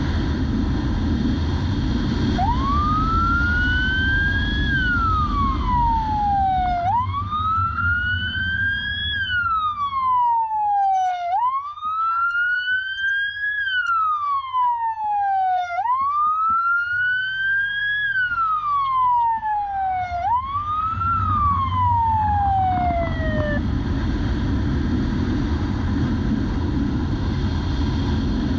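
Police motorcycle siren wailing, five slow rising-and-falling sweeps, starting about two seconds in and stopping a few seconds before the end. Under it, and alone at the start and end, is the steady rush of wind and engine from the motorcycle riding at speed.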